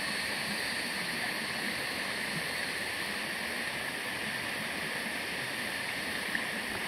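Steady rush of water from river rapids or a waterfall, an even, unbroken noise.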